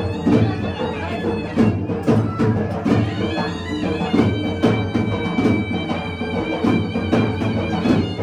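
Traditional folk music: a held, reedy wind-instrument melody over a drum beat.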